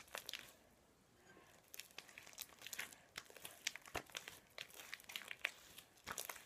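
Blue glue-and-kinetic-sand slime being squeezed and kneaded in the hands, giving faint, irregular sticky crackles and small pops. The slime is still under-activated and needs more borax water.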